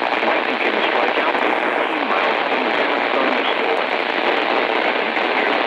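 Weather radio receiver hissing with steady static from a weak signal, with a faint broadcast voice buried in the noise.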